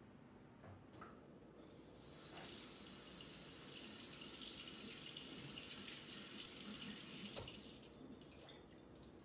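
Kitchen sink faucet running quietly onto a paper towel held under the stream, turned on about two and a half seconds in and shut off near the end.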